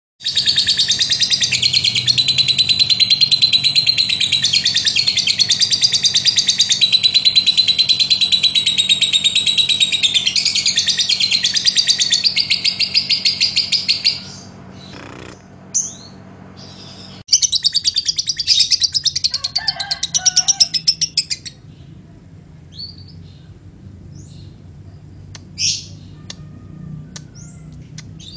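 Lovebird giving its long 'ngekek' chatter, a fast, unbroken run of high-pitched chirps lasting about fourteen seconds. After a short pause it chatters again for about four seconds, then gives scattered single chirps.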